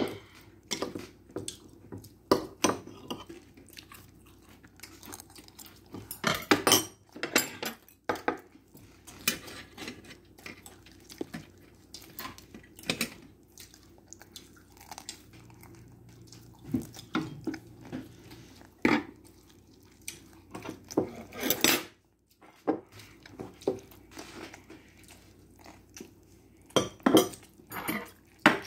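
Metal chopsticks clicking and scraping against a dish at irregular intervals, with a child chewing food between the clicks.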